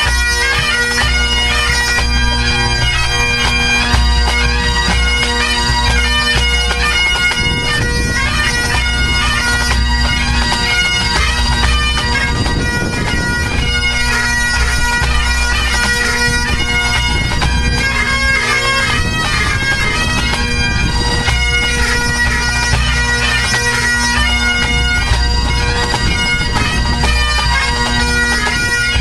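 A full pipe band playing a March, Strathspey and Reel set: Great Highland bagpipes with steady drones under the chanter melody, and the band's drums beating beneath.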